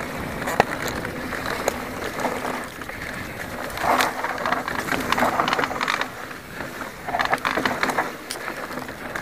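Specialized Enduro mountain bike ridden fast over a grass field and down a rough dirt trail: wind rushing over the microphone and tyres on the ground, with the bike rattling and many sharp knocks over bumps. The knocks and rattle come thicker about four seconds in, and again near the end.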